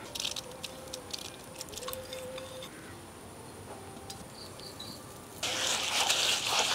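Soaked rice and grated coconut tipped into a stone grinding mortar, a faint patter of falling grains. About five seconds in, the hand-turned stone grinder starts working the wet grains with a louder gritty scraping.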